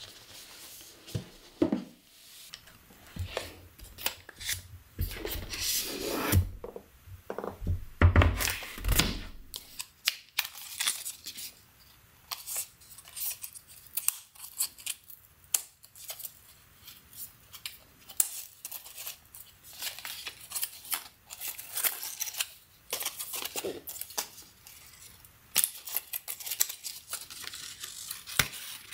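Close-up unboxing sounds from the MacBook Pro's cardboard packaging: dull thumps and cardboard sliding in the first several seconds as the box is opened, then a long run of crisp paper rustling, crinkling and tearing as the paper wrap is pulled off the power adapter and cable.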